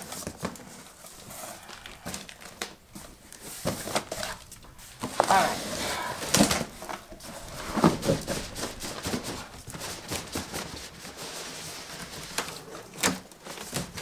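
Large cardboard shipping box being handled: flaps rustling and scraping as the box is turned upside down and lifted off the appliance inside, with irregular knocks of cardboard.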